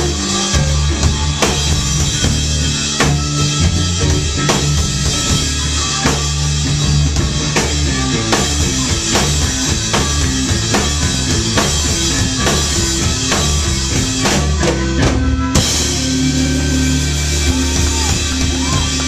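Live blues-rock band playing: blues harmonica over electric guitar, bass guitar and a drum kit, with a steady beat and a busy run of drum hits about three-quarters of the way through.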